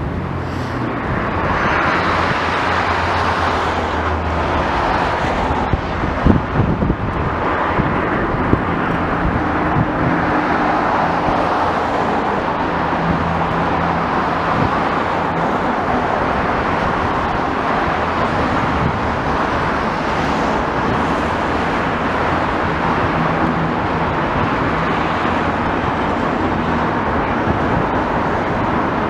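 Steady road traffic and engine noise with slow swells as vehicles pass, and a few sharp knocks about six seconds in.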